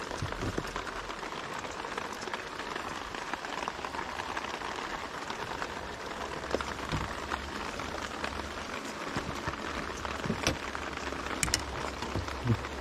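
Steady rain falling, a continuous even hiss, with a few light clicks and taps scattered through it.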